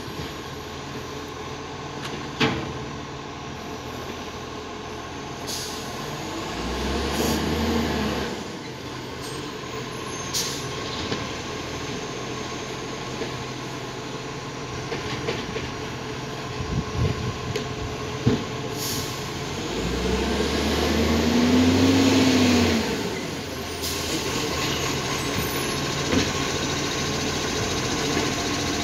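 Iveco ACCO garbage truck's diesel engine running while its Superior Pak side-loader arm lifts and tips bins: the engine revs up twice to drive the hydraulics, the second time with a rising-then-falling hydraulic whine. Sharp clunks, air-brake hisses and a clatter of rubbish or bins falling about midway are heard between.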